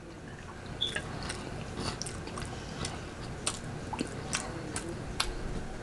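Close-up chewing and biting of a turkey wing flat: scattered mouth clicks, about a dozen over several seconds.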